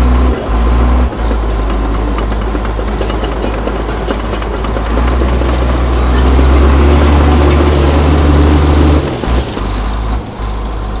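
Crawler bulldozer's diesel engine running loud and steady, working harder from about halfway through and then easing off sharply near the end.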